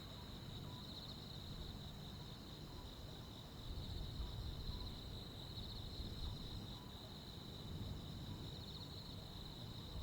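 Crickets and other insects trilling in a steady, unbroken high chorus, with a low rumble underneath that swells for a few seconds near the middle.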